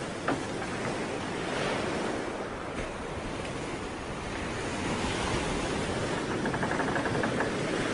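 Surf: a steady rushing wash of waves that eases slightly a few seconds in and swells again.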